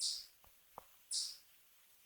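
A small bird calling with short, high chirps, twice, a little over a second apart, with two faint clicks between them.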